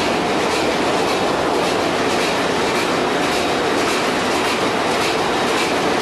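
Doxford two-stroke opposed-piston marine diesel engine running, heard as a loud, steady engine-room din with a regular clatter through it.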